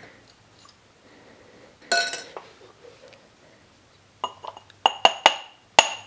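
Glass clinks: one clink about two seconds in, then from about four seconds a quick run of sharp, ringing knocks. A small cup of water frozen solid under vacuum is being knocked to free the ice, which stays stuck.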